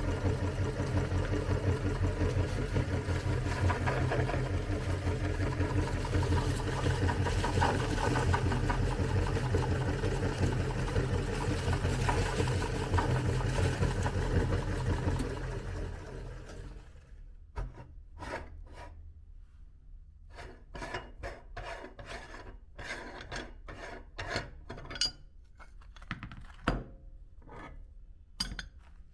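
Electric meat grinder running steadily while grinding cookies. The motor stops about halfway through, and scattered short scrapes and clicks follow.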